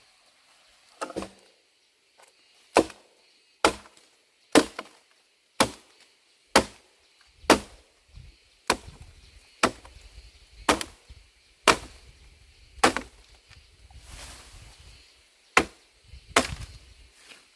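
Wood being chopped with a blade, sharp strokes about one a second with a short pause near the end.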